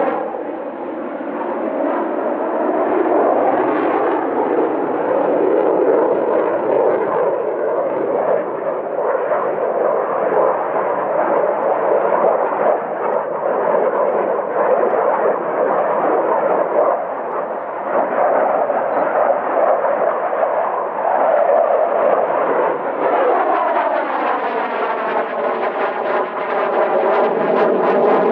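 Mikoyan MiG-29M OVT fighter's twin Klimov RD-33 engines running loud and continuously as the jet manoeuvres. The jet noise takes on a sweeping, phasing tone that rises and falls near the start and again over the last five seconds or so.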